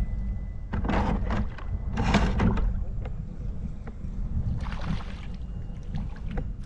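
Three short bursts of splashing water over a steady low rumble on a fishing kayak, as a hooked fish is fought and brought alongside.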